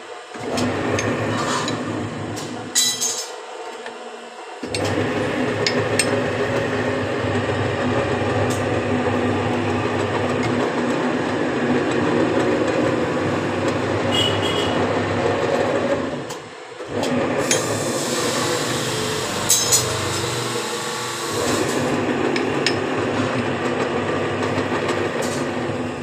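Sharp metallic clinks of steel bar stock against the bending die of a bar-bending tool, several times, over a steady mechanical running noise.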